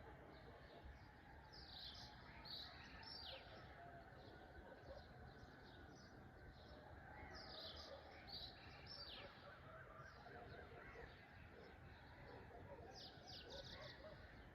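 Several birds chirping faintly in a morning chorus, with many small twitters throughout. Three times a burst of higher, quicker chirps stands out: early, about halfway, and near the end.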